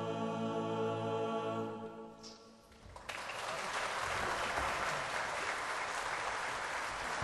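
A klapa, a Croatian a cappella vocal group, holds a final sustained chord that fades out about two seconds in. About a second later an audience breaks into applause.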